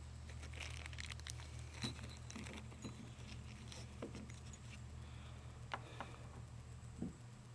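Small metal pop rivets clinking and a small bag rustling as it is opened and the rivets are handled: a faint scatter of light clicks over a steady low hum.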